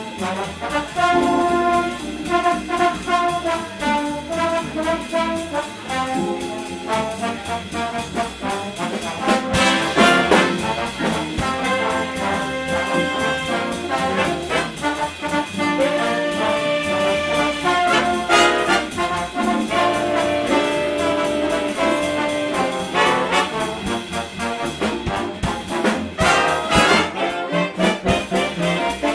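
Live big band jazz: trombones and trumpets play held chords and riffs, with a saxophone section under them. A few sharp full-band accents stand out.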